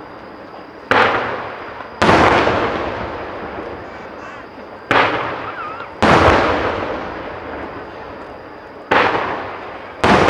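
Aerial firework shells bursting overhead, six sharp bangs in three pairs about a second apart, each bang trailing off in a long rolling echo.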